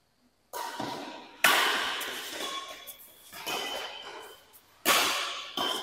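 Badminton rackets striking a shuttlecock in a rally: about five sharp pinging hits, roughly a second or so apart, each echoing in a large hall.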